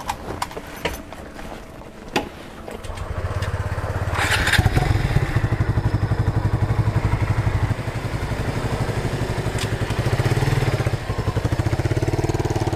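A few clicks and knocks, then a motorcycle engine starting about three seconds in and running with a steady low pulse. It is revved up near the end as the rider pulls away.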